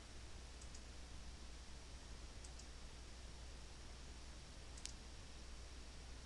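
Faint computer mouse clicks over low hiss and hum: a quick pair of clicks under a second in, another pair about two and a half seconds in, and a single sharper click near five seconds.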